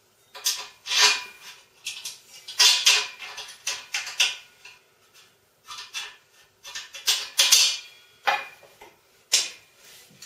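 Hex key driving screws into a steel frame tube: irregular bursts of metal scraping and clinking.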